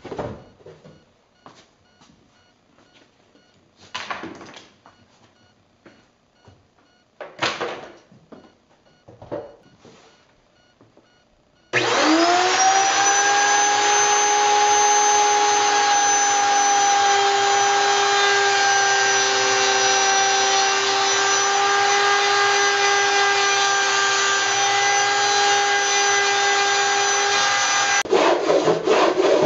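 A few knocks as the wooden barrel is handled, then about twelve seconds in an electric router in a jig on the barrel's open end starts up with a rising whine and runs steadily at speed.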